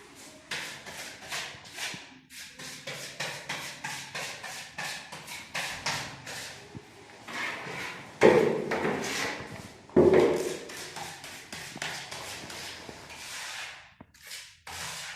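A run of irregular knocks, taps and rubbing, as of objects being handled and set down, with two louder thuds about 8 and 10 seconds in.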